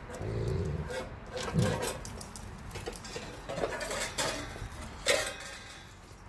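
Dogs feeding on raw turkey carcasses: a low growl in the first second, then scattered sharp clicks and knocks.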